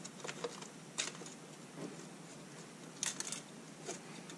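Faint clicks and light rustling of a hand rummaging among wires inside an acrylic box, feeling for a dropped nut. There is one click about a second in and a small cluster of clicks about three seconds in.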